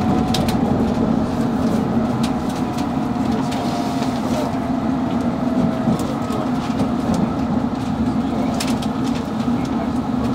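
London Underground Metropolitan line train heard from inside the carriage in a tunnel: a steady rumble of wheels on rail with a few sharp clicks, and a faint whine that falls slowly in pitch over the first half.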